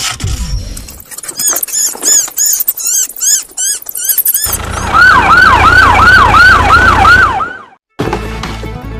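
Electronic siren sound effect: a loud, fast wail that falls in pitch and repeats about three times a second, starting about five seconds in and cutting off abruptly. Before it comes a run of high, arching chirps, about two a second. Music takes over near the end.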